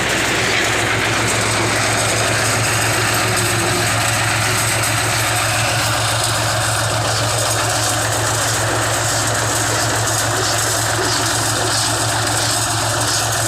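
Tractor engine running steadily while driving an Aambal straw baler, a constant low engine hum under a broad mechanical clatter.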